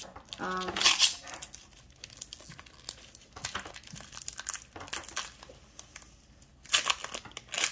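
Foil Pokémon TCG booster pack wrapper being torn open and crinkled by hand: a dense crackling of foil throughout, loudest about a second in and again near the end.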